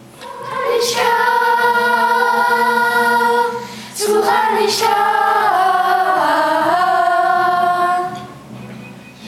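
Class of schoolchildren singing a cappella in unison: a long held phrase from under a second in to about three and a half seconds, then a second phrase from about four seconds to eight, its melody stepping down in the middle before it fades.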